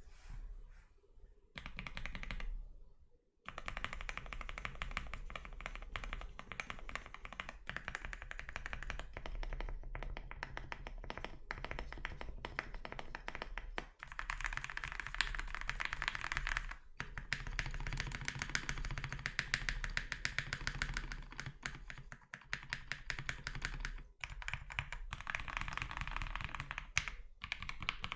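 Fast, continuous typing on a Zoom65 mechanical keyboard with lubed and filmed SP-Star Meteor White switches and its full set of foam inserts. A few scattered keystrokes come first, then a dense run of rapid key clicks starts about three and a half seconds in and carries on, with a few brief pauses.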